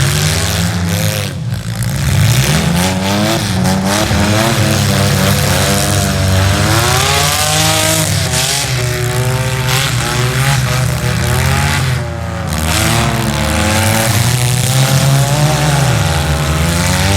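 Demolition derby car engines revving hard, pitch rising and falling again and again as the cars accelerate and back off.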